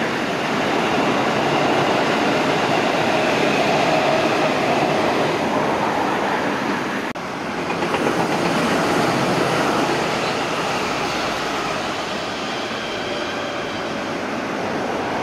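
JR West 221 series electric trains running on the line: the loud, steady rolling noise of a train passing. It breaks off abruptly about seven seconds in and is followed by the running noise of another train, which slowly fades.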